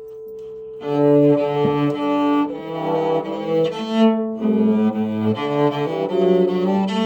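A freshly repaired cello, its neck reglued and bridge newly set, bowed in a short run of changing notes that starts just under a second in. A single held tone rings beforehand.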